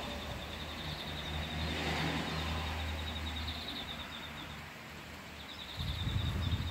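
Outdoor ambience as a storm builds: a low rumble for the first few seconds, with a bird's quick high trills repeating over it. Near the end, gusts of wind buffet the microphone.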